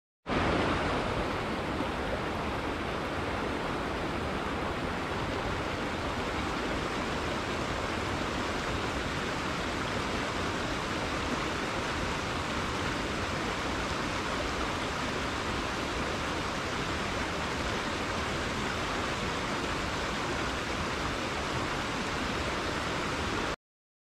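Shallow mountain river rushing over rocks: a steady, even sound of flowing water that cuts off suddenly near the end.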